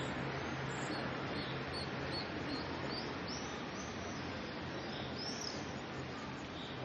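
Common blackbird giving short, high chirping calls: a string of them from about a second and a half in, and a louder one about five seconds in, over a steady outdoor background hiss.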